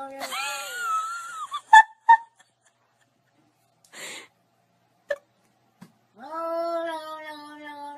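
A hairless cat yowling in long, drawn-out calls, one at the start and another near the end. In the gap between them come two loud sharp clicks and a short noisy burst.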